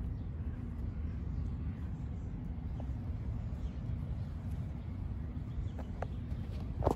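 Steady low outdoor rumble, with a few faint ticks and a louder knock right at the end.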